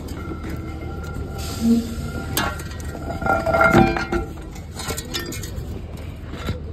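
Light metallic clinks and clanks, the loudest cluster with a short ring about three and a half seconds in, over a steady low rumble.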